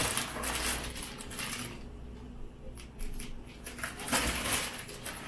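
Clear plastic bags of model-kit parts crinkling and rustling as they are handled, with light clicks of hard plastic sprues knocking together. The rustling fills the first second and a half, gives way to scattered clicks, and comes back briefly about four seconds in.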